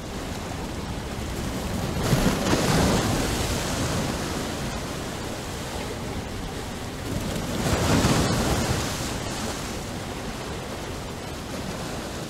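Ocean surf: a steady rush of breaking waves that swells twice, about two seconds in and again around eight seconds.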